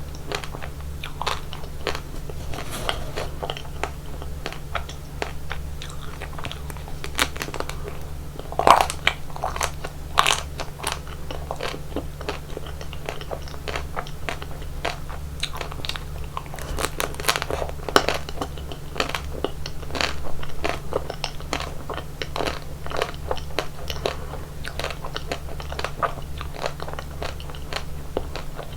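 Close-miked biting and chewing of chocolate ice cream: irregular crisp crunches and crackles, the loudest bites about nine and eighteen seconds in, over a steady low hum.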